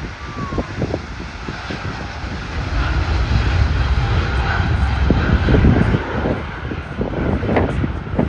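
Jet airliner's engines during a departure from the runway: a loud, broad rumble that grows louder about two to three seconds in.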